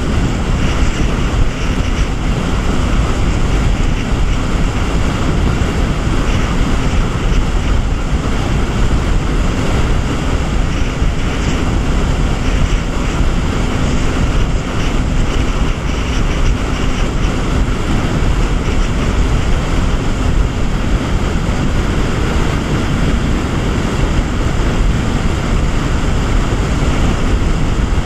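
Jet ski running steadily under way: engine and jet-pump noise mixed with rushing water from the wake and heavy wind buffeting on the microphone.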